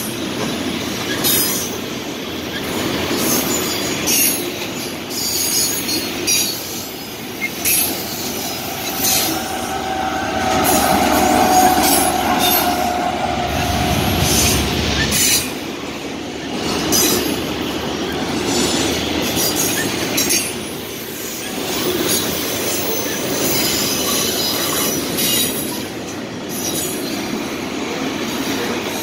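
Freight trains passing at close range: a Norfolk Southern coal train of open hopper cars and a CSX double-stack intermodal train. Steel wheels rumble and clack over the rail joints throughout. About nine to fifteen seconds in, a steady high wheel squeal rises over the rumble at the loudest point.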